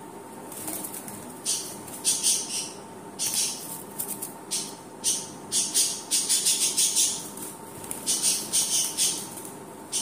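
Caged budgerigars calling in repeated short, high-pitched chirps that come in quick clusters throughout.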